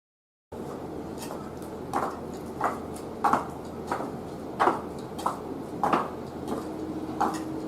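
Footsteps in geta, Japanese wooden clogs, walking at an even pace: a sharp wooden clack with a short ring about every two-thirds of a second, over a steady low background hum.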